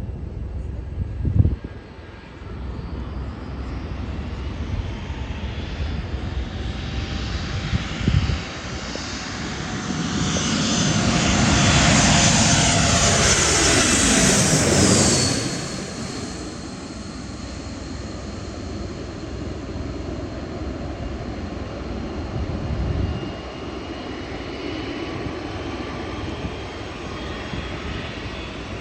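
Airliner passing low overhead: its engine noise builds to its loudest about halfway through. Its whine then drops in pitch as it goes past, settling to a steadier rumble. Two short thumps come about a second in and again about eight seconds in.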